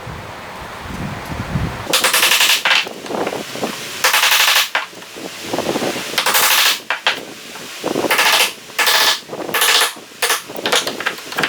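Repeated strokes of a woodworking hand tool scraping or shaving wood, each a short rasping hiss under a second long. The strokes come about every two seconds at first and then closer together near the end.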